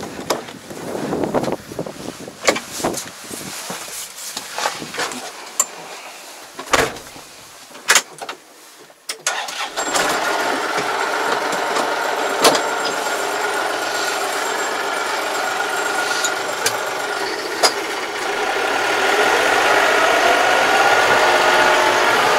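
Clunks and knocks of a Yanmar tractor's cab door being opened and the driver climbing in. About ten seconds in, the tractor's diesel engine starts and runs steadily, then grows louder and rises a little in pitch near the end as the tractor moves off.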